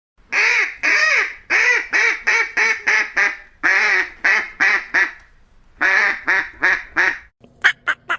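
A duck quacking in a rapid run of about a dozen loud quacks, then after a short pause four more. Near the end come a few much shorter, clipped quacks.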